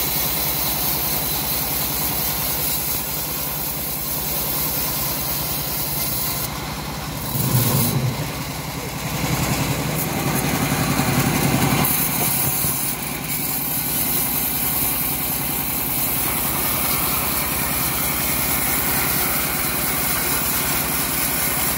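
Homemade bandsaw mill running steadily while cutting an old teak log, with a louder, lower stretch from about seven to twelve seconds in as the blade works through the wood.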